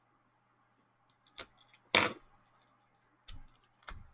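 Packaging being handled as it is opened: a few light clicks and one sharp, louder crackle about two seconds in.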